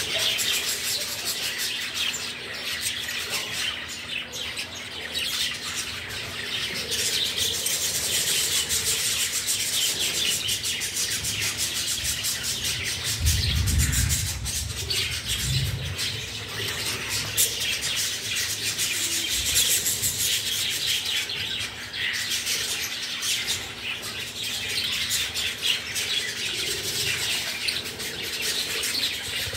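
A flock of budgerigars chirping and chattering without a break. About halfway through, a budgie's wings flap close to the microphone with a brief low rumble.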